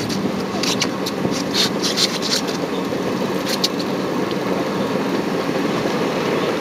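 Boat engine running steadily at idle, with a few short high rasps in the first few seconds.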